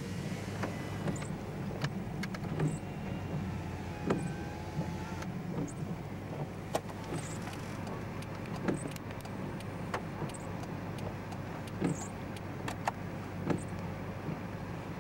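A car engine idling steadily, heard from inside the car as a low hum, with scattered sharp clicks and knocks.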